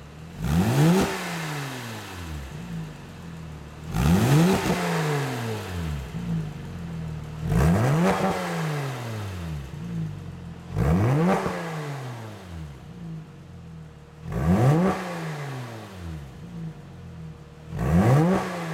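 Porsche 996 Carrera flat-six engine through an aftermarket iPE stainless exhaust (headers, cat pipes, valved muffler), blipped six times from idle, about every three and a half seconds. Each blip rises sharply in pitch, then falls back over a couple of seconds to a steady idle.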